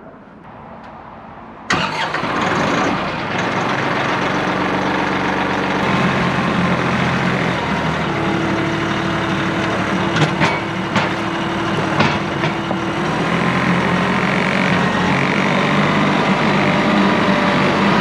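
Engine of a small skid-steer-type compact loader starting up about two seconds in, then running steadily with its pitch shifting, plus three sharp knocks near the middle.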